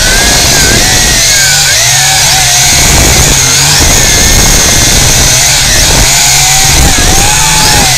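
Multirotor drone's electric motors and propellers whining loudly from on board. The pitch wavers up and down as it flies.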